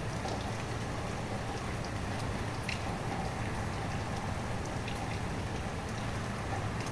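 Steady rain falling, with scattered individual drops ticking close by; one drop stands out about three seconds in.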